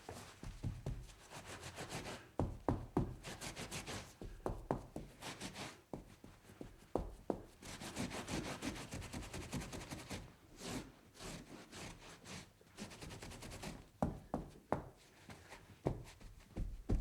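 Foley of a spill being cleaned up: rubbing and wiping strokes in quick runs, with sharp knocks here and there.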